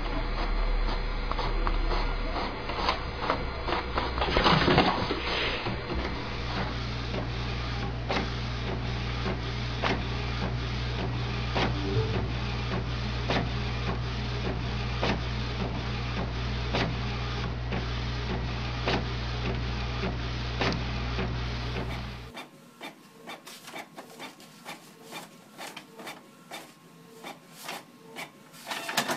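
Inkjet printers printing, the print-head carriage shuttling and the paper feeding in a steady rhythm of mechanical clicks over a running hum. About 22 seconds in the sound drops to a quieter printer clicking about once a second.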